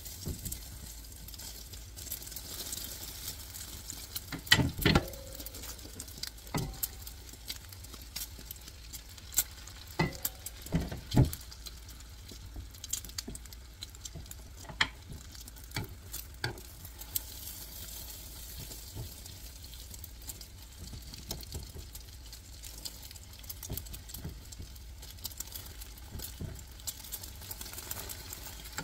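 Beaten egg for a rolled omelette sizzling in a nonstick frying pan, with a silicone spatula and metal spoon scraping and knocking against the pan now and then. The loudest knocks come a little after four seconds and again around ten to eleven seconds in.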